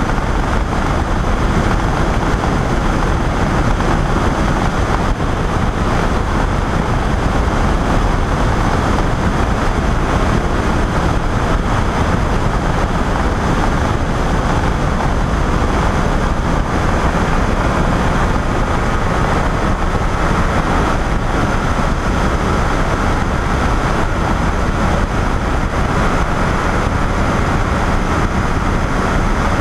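Flexwing microlight trike's engine and pusher propeller running steadily in level flight, a constant drone mixed with a dense rush of air.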